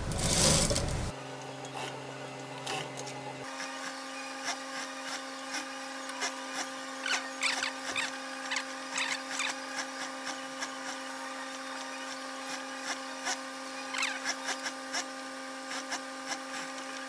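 Industrial sewing machine stitching for about the first second, then stopping. A steady hum follows, with scattered light clicks and rustles as fabric and tape are handled at the machine.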